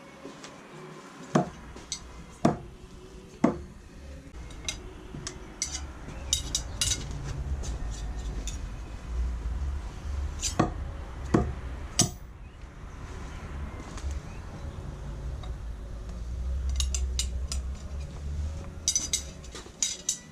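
Throwing knives striking a wooden log-round target: three sharp thunks about a second apart near the start and three more around the middle. Metal blades clink together as the knives are handled, most busily near the end, over a steady low rumble.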